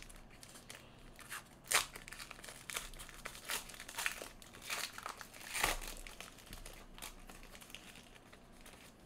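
Foil wrapper of a Panini Elite basketball card pack being torn open and crinkled by hand, in irregular crackles with two louder tears about two and six seconds in, growing quieter near the end.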